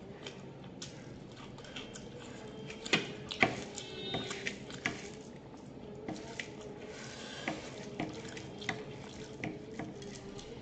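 A bare hand mixing and scooping rice on a steel plate: soft wet squishing with scattered sharp clicks against the plate, the two loudest about three seconds in.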